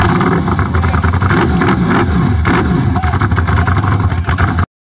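Motorcycle engine running loudly, its pitch rising and falling as it is revved. It cuts off abruptly near the end.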